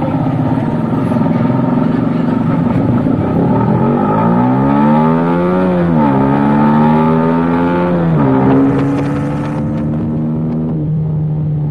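Motorcycle engine pulling through the gears: the pitch climbs, drops sharply at an upshift about six seconds in, climbs again and drops at a second upshift about two seconds later, then holds steady.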